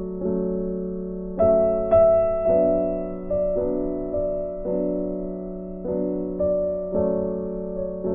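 Background piano music: slow chords struck every half second to a second, each fading away before the next.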